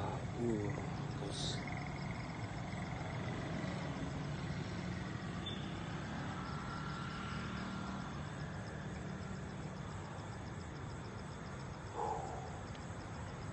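Steady rumble of road traffic, with a fast, even, high-pitched trill of night insects over it.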